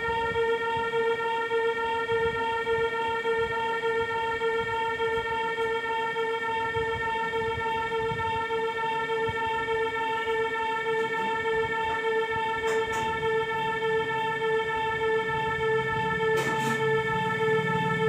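Casio SA-78 electronic keyboard sounding one long, steady note, its pitch unchanging throughout. A couple of faint clicks come in the second half, and a lower drone joins underneath near the end.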